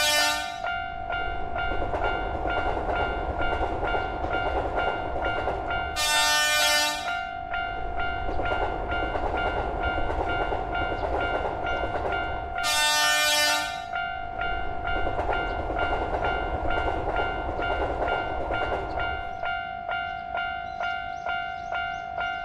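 Japanese level-crossing alarm ringing its steady 'kan-kan' over the rumble of a train running on the track, with three loud train horn blasts about six seconds apart, each lasting about a second.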